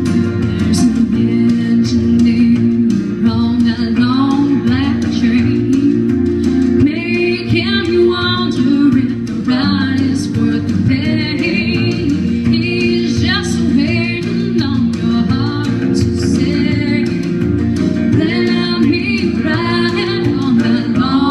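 A woman singing a country song into a microphone over instrumental accompaniment, her voice coming in about three seconds in.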